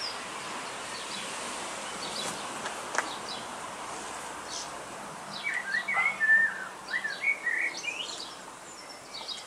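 Small songbird chirping and twittering, a quick run of rising and falling notes a little after halfway through, over a steady outdoor hiss; a single click about three seconds in.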